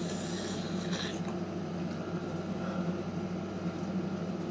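Steady low mechanical hum, with a brief rustle about a second in.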